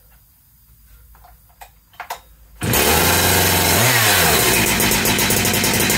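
A big-bore 76cc Husqvarna 372XP two-stroke chainsaw, freshly rebuilt with a pop-up piston, starting for the first time. After a few faint clicks it catches suddenly about two and a half seconds in and runs loud, its revs wavering briefly before it holds a steady run.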